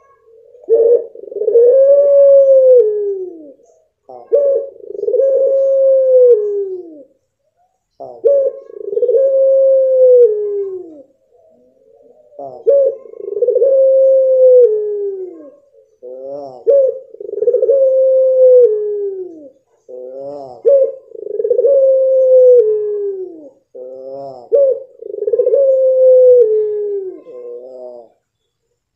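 Puter pelung, the long-calling domestic turtle dove, giving a series of seven long drawn-out coos about every four seconds. Each is a held note that rises a little and then falls away at the end. From about the middle onward the calls open with a quick wavering trill.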